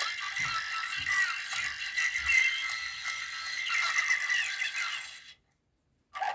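Rattling, jingly music from a battery-operated Christmas toy that stops abruptly about five seconds in, followed by a short click near the end.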